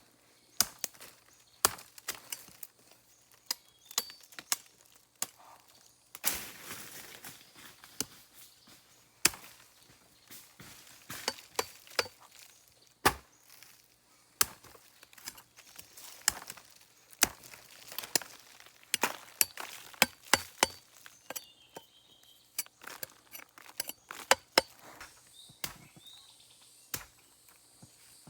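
A blade chopping with sharp, irregular strikes, some coming in quick runs of two or three.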